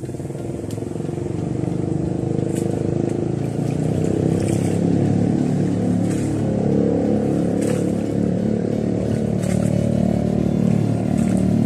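A small engine running steadily, growing louder over the first few seconds and then holding.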